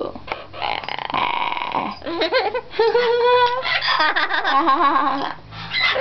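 Pet parrot vocalizing: a few scratchy, croaky sounds, then about three seconds of wavering, sing-song pitched calls, its attempt at singing along to a nursery tune.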